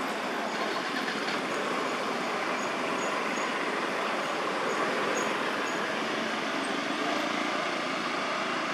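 Steady rushing noise with no clear source, with a row of faint, short high peeps in the first six seconds or so.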